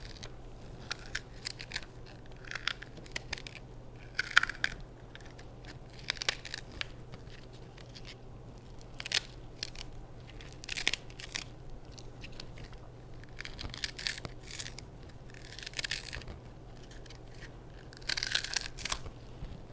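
Leek being cut into small pieces with a kitchen knife held in the hands: irregular crisp snips and snaps, with a short rasping tear every couple of seconds as the blade goes through. A low steady hum runs underneath.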